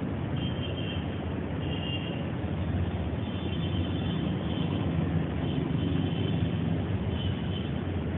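Steady rumble of road traffic with a low hum, with faint short high chirps now and then.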